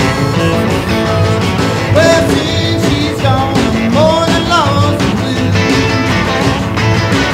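Rockabilly music laid over the footage: a band with guitar and a voice singing, at a steady level.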